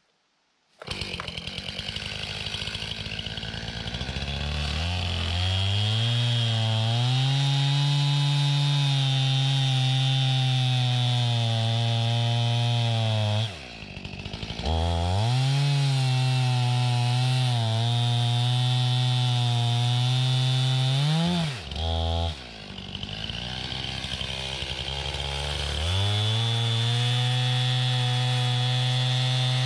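Chainsaw cutting through a blown-down hemlock log. The saw starts suddenly about a second in and runs steadily at full throttle under load. It drops off twice, about halfway and about two-thirds through, and rises in pitch just before the second drop as the chain comes free. After a spell at lower speed it goes back to full throttle in the cut near the end.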